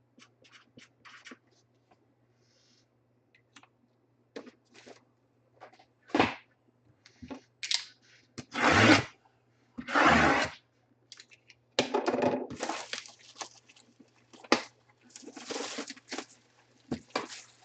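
Packaging of a boxed autographed jersey being handled and torn: a series of short rustling, crinkling bursts, the two loudest about nine and ten seconds in.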